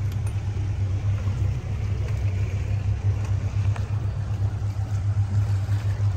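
Motorboat engine running steadily while the boat cruises, a low even hum under a faint rushing noise.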